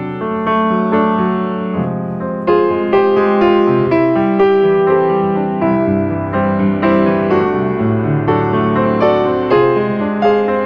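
Background piano music: gentle notes struck about twice a second, each fading.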